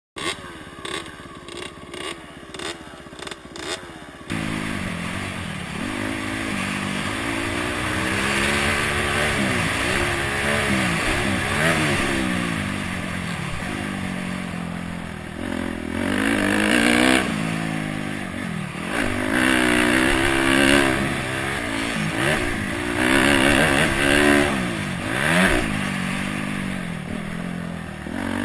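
Honda CRF250X's single-cylinder four-stroke engine out on a motocross track, its revs rising and falling over and over as it accelerates and backs off. A few sharp knocks come before the engine is heard, about four seconds in.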